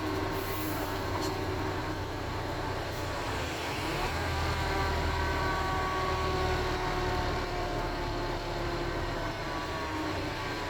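Wright StreetDeck Ultroliner double-decker bus under way, its Mercedes OM934 four-cylinder diesel running with a low rumble that swells about four seconds in. Several whining tones slide slowly up and down in pitch over it: the groaning noise this bus is known for.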